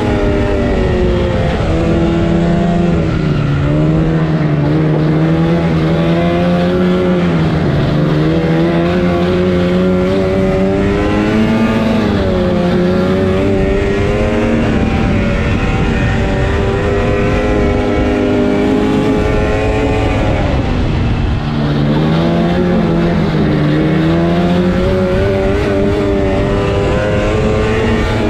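Yamaha Phazer snowmobile's two-stroke twin engine running under way, its note rising and falling repeatedly with the throttle. The pitch and level drop briefly about two-thirds of the way through, then climb again.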